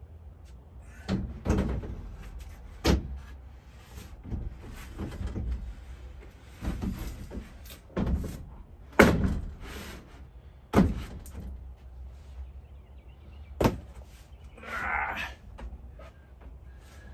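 A heavy sheet of wafer board knocking and thudding against the galvanized steel IKEA Skorva bed rails as it is lifted in, set down and shifted into place: a string of sharp thumps, the loudest about nine seconds in, and a short scrape near the end.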